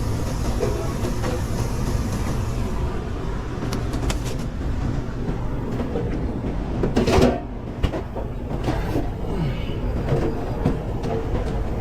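Commercial kitchen line during a rush: a steady rumble of ventilation and equipment, with scattered clicks and clatter of utensils and pans, and a short loud rush of noise about seven seconds in.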